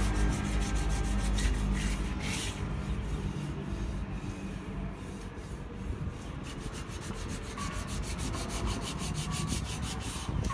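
Hand sanding of an aluminum alloy wheel rim: sandpaper scraped back and forth over the spokes and rim edge, settling into quick even strokes, about five a second, in the second half. A low engine drone runs underneath and fades out in the first two seconds.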